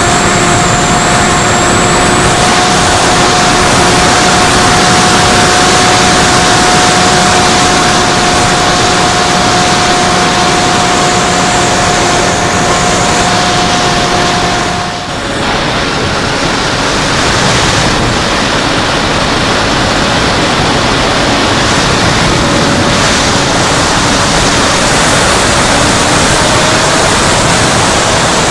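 Electric motor and propeller of an FPV fixed-wing RC plane whining steadily under loud wind rush on the onboard camera's microphone. About halfway the whine breaks off briefly and the sound dips, then the whine returns at a lower pitch.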